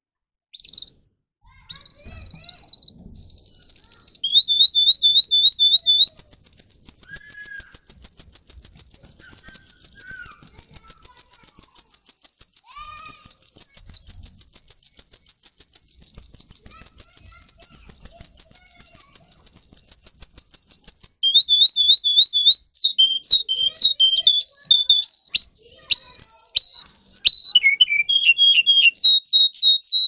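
Domestic canary singing: a few short high phrases, then a very fast, even trill held for about fifteen seconds. After a brief break it moves into a quick run of varied rising and falling notes.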